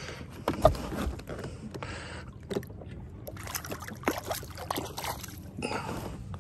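A catfish being released over a boat's side: water splashing and sloshing as it goes back into the lake, with several sharp knocks, the loudest a little under a second in.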